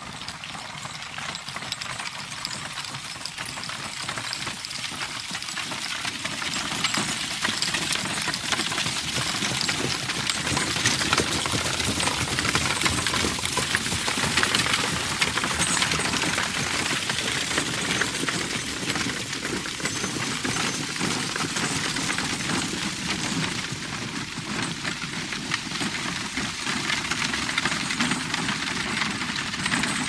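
Horse-drawn cart passing: hooves clip-clopping and wheels rattling in a dense, continuous clatter. It grows louder over the first ten seconds or so, then holds fairly steady.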